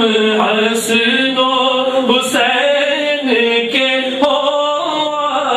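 Male singing of a manqabat, a Sufi devotional song, in long melodic lines that run without a break.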